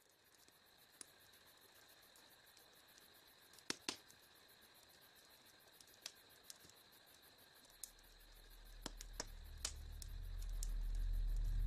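Faint, steady insect trilling from the grassland, with a few sharp clicks scattered through it. A low rumble builds up over the last few seconds.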